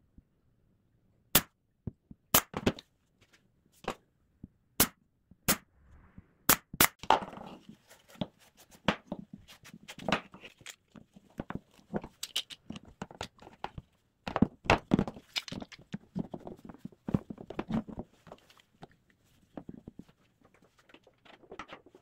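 Pneumatic brad nailer firing seven sharp single shots, a second or less apart, during the first seven seconds. After that comes an irregular clatter of knocks and clicks as metal bar clamps are set and tightened on the plywood.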